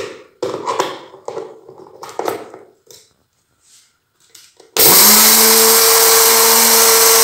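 Plastic clatter as the bowl of a small electric grinder is fitted and handled. About five seconds in, the grinder's motor starts and runs steadily and loudly, grinding roasted sesame seeds.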